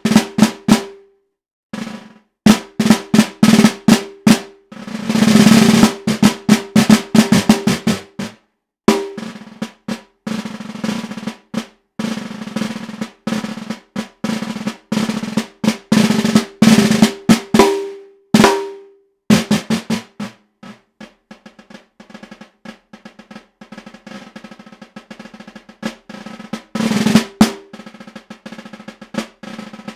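Solo concert snare drum played with wooden sticks: sharp accented strokes and short rolls broken by brief pauses, the head ringing with a low pitched tone. In the second half the playing drops to a long stretch of soft, rapid strokes before loud strokes return near the end.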